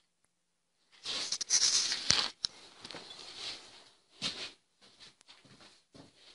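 Rustling and clattering, loudest for about a second and a half starting about a second in, with sharp clicks in it, followed by scattered short rustles and small knocks.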